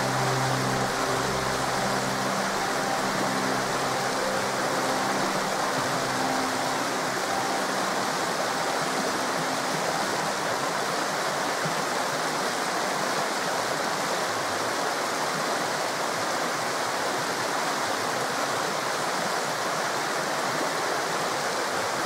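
Forest river rushing steadily: a constant, even wash of flowing water. Faint, sustained low music notes run beneath it and fade out about halfway.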